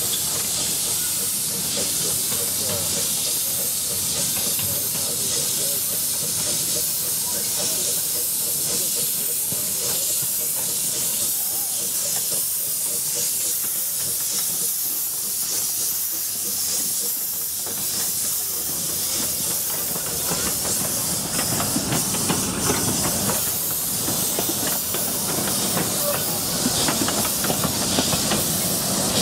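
Narrow-gauge steam locomotive hissing steadily as it pulls its carriages past, steam blowing from around its cylinders. From about twenty seconds in, uneven clattering of the moving train joins the hiss.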